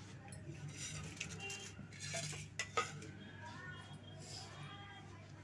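Metal kitchen utensils and dishes clinking and knocking a few separate times, the loudest a sharp clink a little before three seconds in, as whole spices are put into an aluminium pressure cooker of dal. A steady low hum runs underneath.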